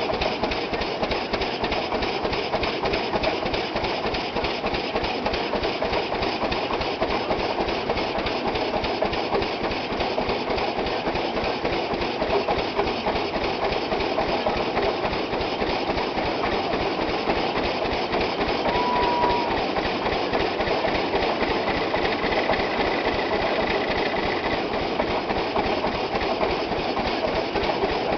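Threshing machine running under belt power from a 20-40 Rumely OilPull tractor, a steady, fast, rhythmic clatter of the machinery and engine as grain bundles are pitched into the feeder.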